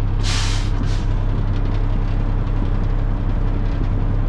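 Fire truck's engine idling steadily, with a sharp hiss of air about a quarter second in lasting about half a second, then a brief second hiss: the air brakes being set as the truck comes to a stop.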